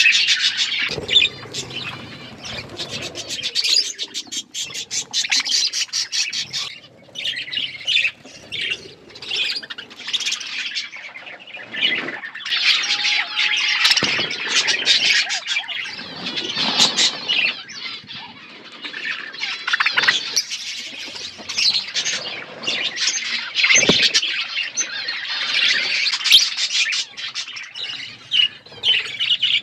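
A flock of budgerigars chattering without a break: a dense jumble of warbling chirps and squawks.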